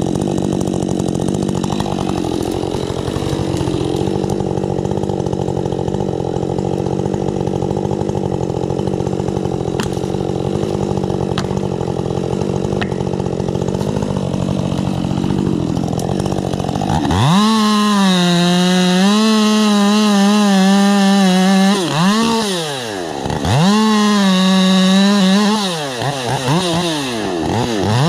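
Husqvarna 550 XP Mark II two-stroke chainsaw with a 20-inch bar and Stihl .325 chain, first running rough and loaded as if cutting wood. About two-thirds of the way in it switches to a clean, high free-revving whine. Near the end the pitch drops and climbs back twice as the throttle is eased and reopened.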